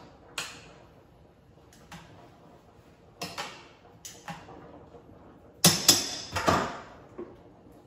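A metal utensil clinking and knocking against a stainless steel pot while pasta is stirred: a few scattered light knocks, then a louder cluster of clanks about six seconds in.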